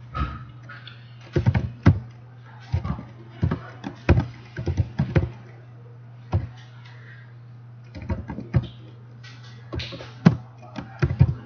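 Computer keyboard being typed on: irregular runs of sharp key clicks with short pauses between, over a steady low hum.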